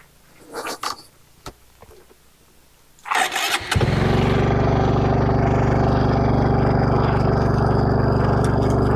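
A few faint knocks, then a motorcycle engine is cranked briefly and catches about three and a half seconds in. After that it runs loud and steady at an even pitch.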